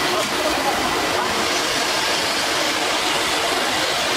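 Four-spindle CNC wood router running with one spindle lowered into a wooden panel, a steady, even hiss with no clear pitch.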